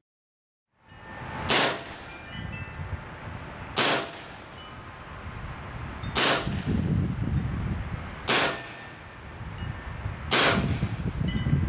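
Five shots from an Evanix VIPER semi-automatic PCP air pistol in .22 calibre, spaced about two seconds apart. Wind chimes ring faintly between the shots.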